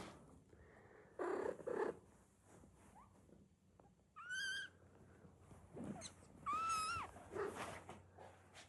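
Newborn kittens mewing: two thin, high-pitched cries, the second a little longer, with short noisy bursts of movement and snuffling between them.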